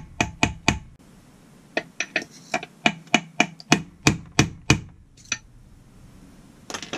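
Hammer tapping a deep socket to drive a new crankshaft oil seal home into a Husqvarna 394XP chainsaw crankcase: sharp metallic taps. Three quick taps come first, then after a pause a steady run of about a dozen taps at roughly three to four a second, then a few single taps.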